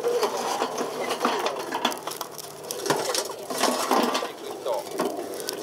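Glowing charcoal dumped out of a chimney starter onto a metal grill grate, the pieces clattering and clinking against each other and the grate in a run of short knocks.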